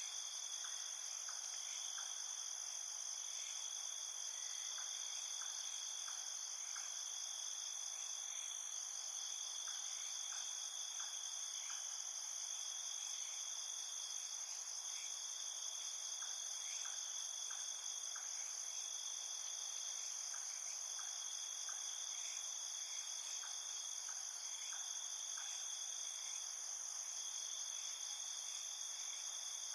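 Night chorus of crickets and other insects: a steady high-pitched trill that never lets up, with short chirps in little groups of two to four every second or two.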